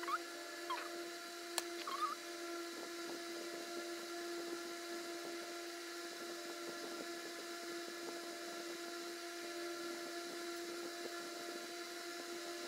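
Steady electric motor hum with several even overtones, like a running fan, and a few faint short chirps in the first two seconds.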